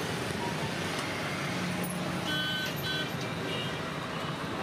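Steady road traffic noise from passing vehicles, with a few short high horn toots about halfway through.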